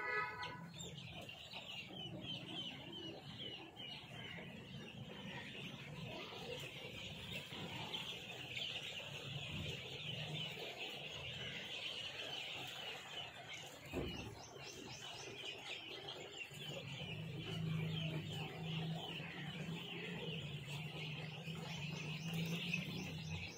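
A dense, continuous chorus of high peeping from a shed full of hundreds of newly hatched chicks. A low steady hum runs underneath and grows louder in the second half, and there is a single knock about two-thirds of the way through.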